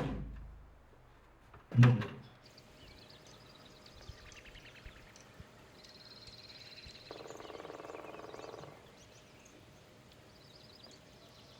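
Two short, loud sounds sent into a hollow plastic pipe or bucket, one at the start and one about two seconds in, each ringing on with a hollow echo. After that, faint bird chirps and a brief buzzy animal call.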